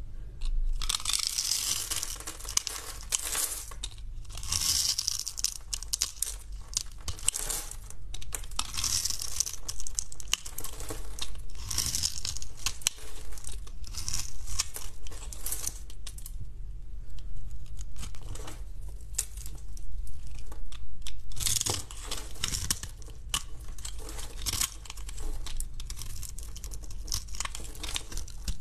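Utility-knife blade cutting into a hard, dry bar of soap scored into a grid, with repeated crisp crunching and crackling strokes as small cubes and flakes break off.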